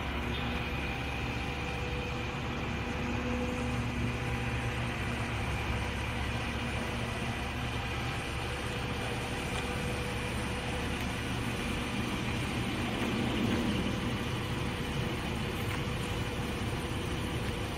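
Heavy vehicle engine idling steadily, with a brief swell about two-thirds of the way through.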